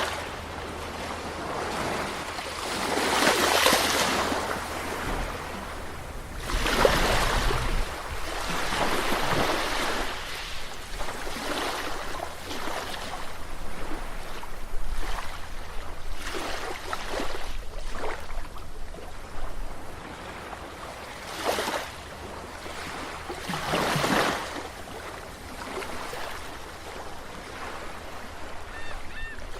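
Sea waves washing and splashing ashore in a continuous wash, with bigger surges breaking about three and a half, seven and twenty-four seconds in.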